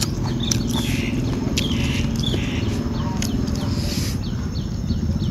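Eating sounds: chewing and soft handling of noodles and papaya salad, with scattered small clicks. Small birds chirp repeatedly in the background over a steady low hum.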